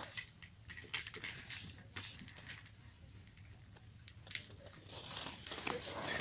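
Quiet rustling with scattered light clicks and crackles over a faint low hum, growing a little louder toward the end.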